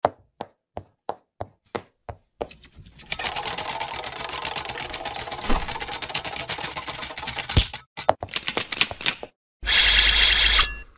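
Cartoon sound effects for an animated logo intro. About seven sharp, evenly spaced clicks come first, then a long rapid mechanical clatter like a typewriter, then a few scattered clicks. Near the end there is a loud, bright electronic buzzing burst lasting about a second.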